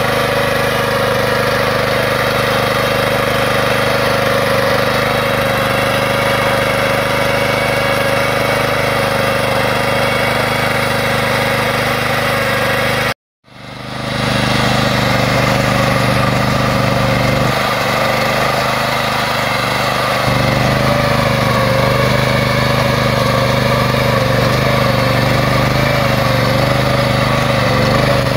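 Small petrol engine of a Pasquali two-wheel tractor running steadily under load while it drives a rotary plough through clay garden soil. The sound cuts out briefly about halfway through and fades back in.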